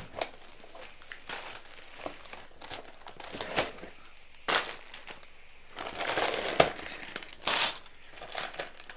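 Plastic bags of LEGO pieces and paper packaging crinkling and rustling in irregular bursts as hands rummage through a cardboard box.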